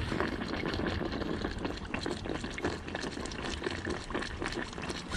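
Whole duck deep-frying in hot peanut oil: the oil bubbles and sizzles steadily with dense crackling.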